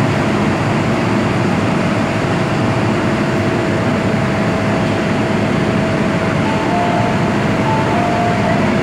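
Inside a stationary MTR M-Train standing at a platform: a steady ventilation and equipment hum with a thin steady whine. Short two-note electronic tones sound twice near the end.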